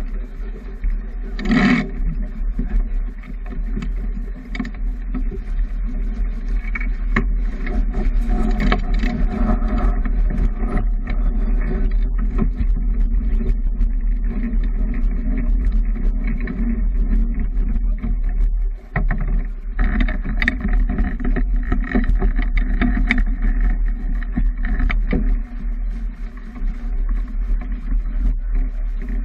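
Wind buffeting the microphone and water rushing along the hull of a sailboat under sail, a steady rush with one brief louder burst about two seconds in.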